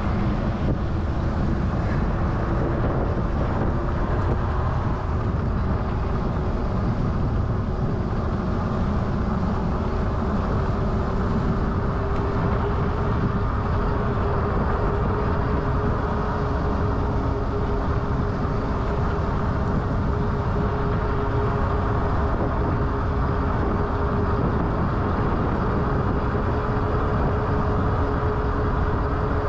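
Wind buffeting an action camera's microphone on a moving e-bike, with a steady whine that rises slightly in pitch and a fainter lower tone joining partway through.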